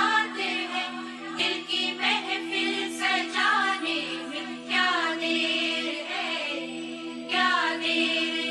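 Background music: a melody gliding and ornamented over a steady low drone, with a vocal or vocal-like line.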